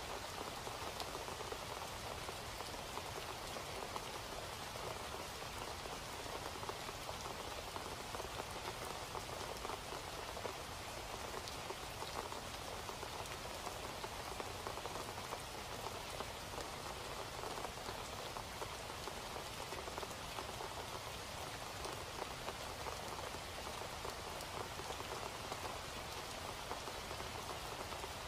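Steady rain falling: an even hiss of many small drops that does not change.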